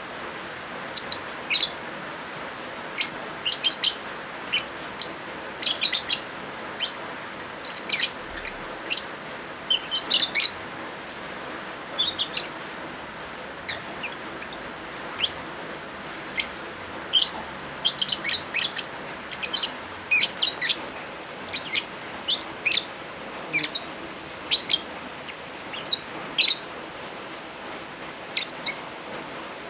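Lovebirds chirping in short bursts of sharp, high chirps, clusters coming every second or so, over a steady hiss of rain.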